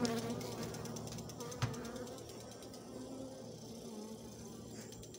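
Italian honey bees buzzing in a steady, slightly wavering hum as they cover a brood frame lifted from an open hive and fly close by, with a single short knock about a second and a half in.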